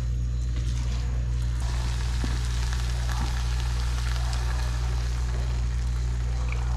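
Risotto rice and vegetable broth sizzling in the pan, steady throughout, over a constant low hum.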